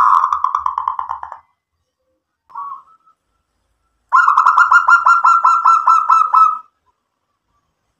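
Zebra dove singing: rapid runs of short staccato coos, several notes a second. One run fades out early, a single short note follows about two and a half seconds in, and a longer run starts about four seconds in and stops about two and a half seconds later.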